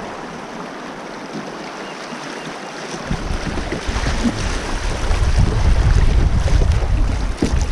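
Fast river current rushing around a kayak through choppy water, with wind buffeting the microphone from about three seconds in, getting louder.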